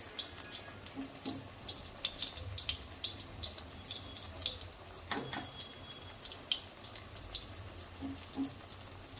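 Batter-coated chicken leg pieces deep-frying in hot oil in a kadai: a steady sizzle full of quick crackles and spitting pops.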